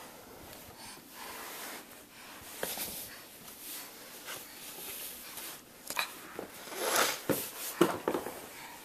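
Horse blowing a snort through its nostrils about seven seconds in, among scattered sharp knocks and rustling, the loudest knock just after the snort.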